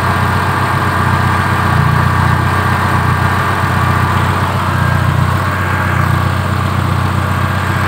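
Old carburetted car engine idling steadily, with a slight rise and fall in its note every two to three seconds. The idle speed has just been adjusted to cure a rough, shaking idle, and is judged good.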